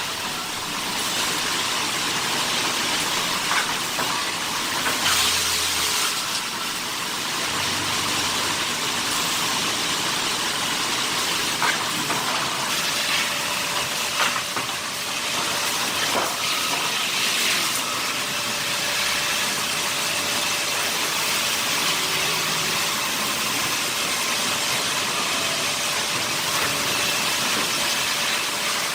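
Sawmill wood-cutting machinery running: a steady, hissing machine noise with a few faint steady tones and occasional short knocks.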